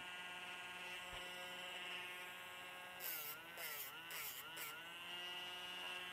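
Handheld pet nail grinder running with a steady whine. From about three seconds in it grinds a puppy's toenail in four short touches, its pitch dipping under load with a gritty rasp each time.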